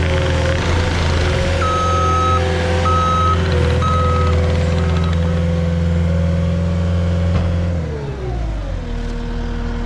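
Cat compact track loader's diesel engine running at high revs with its backup alarm beeping four times, about once a second. Near the end the engine winds down to a lower, steady idle.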